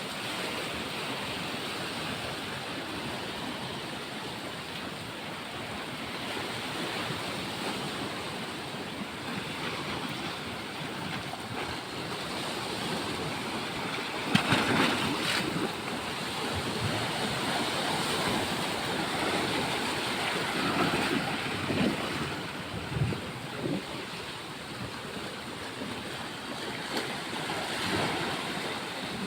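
Sea waves washing onto a beach in a steady rush, with wind on the microphone; a louder surge comes about halfway through and a few smaller swells follow.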